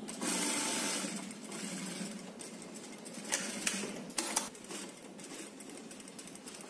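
Juki single-needle industrial sewing machine stitching shirt fabric. It runs loudest in a burst over about the first second, then carries on more quietly, with a few sharp clicks a little past the middle.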